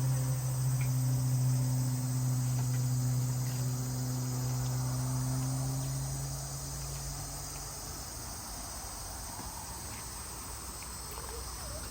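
Steady high-pitched chorus of insects, typical of crickets, running through a summer night. Under it a low steady hum, the loudest thing, fades away about seven seconds in.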